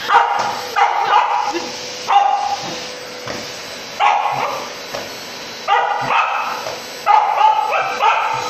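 Samoyed barking and yipping in repeated short volleys at a running vacuum cleaner, whose steady hum runs underneath.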